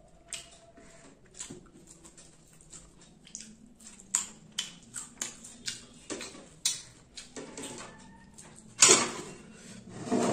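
Close-miked eating sounds: wet chewing and lip smacks of a person eating rice and fried fish by hand, heard as irregular sharp clicks. A louder scraping burst comes near the end.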